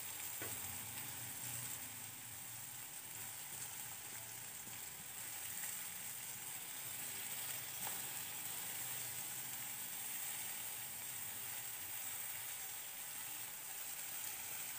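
Chopped onions sizzling steadily in hot oil in a kadhai, a continuous even hiss.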